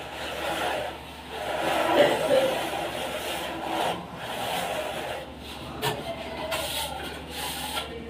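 A plasterer's straight edge and trowel scraping and rubbing over wet cement plaster on a wall, in uneven strokes, with a sharp knock about six seconds in.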